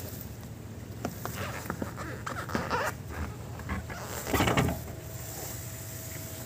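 Footsteps and handling noise from someone moving about inside an empty bus: scattered light clicks and knocks, with one louder scuffing noise a little past four seconds in.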